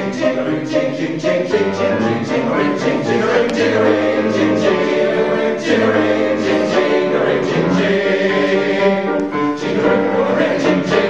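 Men's chorus singing with accompaniment, over a steady rhythm of sharp percussive hits.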